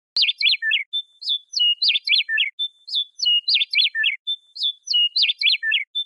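Western meadowlark singing: a phrase of clear whistled notes and falling slurs, repeated several times about every second and a half.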